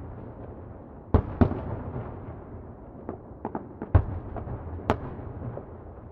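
Distant fireworks going off: scattered sharp bangs over a rolling, echoing rumble. There is a pair of bangs about a second in, a quick cluster around three to four seconds with the loudest bang among them, and one more near the end.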